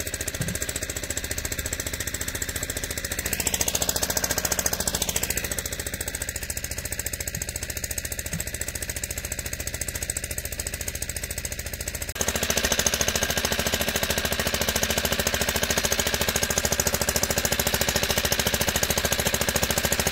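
Small engine driving a syrup transfer pump, running steadily with a fast, even chugging while it pumps through a hose into pails. About twelve seconds in it suddenly becomes louder and fuller, as heard closer to the engine.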